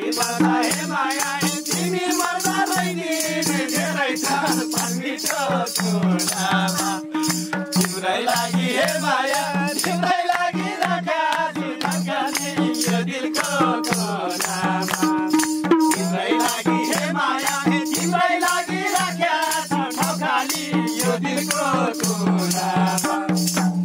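Live Nepali dohori folk music: a madal drum and fast, even high-pitched percussion keep the beat under a steady held droning note, with voices over it.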